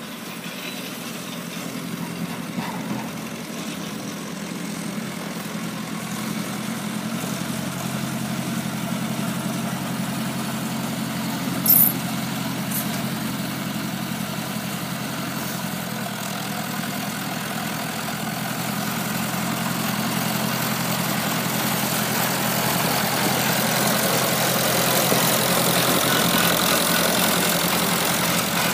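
Massey Ferguson 165 tractor's four-cylinder Perkins diesel engine running steadily as the tractor drives, growing louder as it comes closer. A single sharp click about twelve seconds in.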